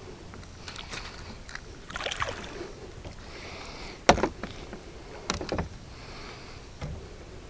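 Knocks and thumps on a plastic kayak's hull and deck as a just-caught bass and fishing gear are handled: a string of sharp knocks, the loudest about four seconds in and another pair just after five seconds.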